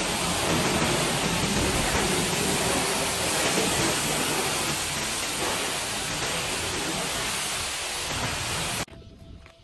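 Steady rushing hiss of car-wash equipment running. It cuts off suddenly near the end.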